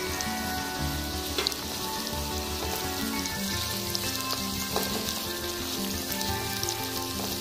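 Sliced onions, green chillies and carrot strips sizzling in hot oil in a wok, stirred with a silicone spatula, with a few sharp scrapes and clicks. Soft background music plays underneath.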